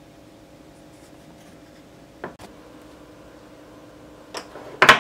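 Two 18650 lithium-ion cells being handled on a wooden workbench. A pair of light clicks comes about two seconds in, then a louder knock and clatter near the end as the cells meet the wood, over a faint steady hum.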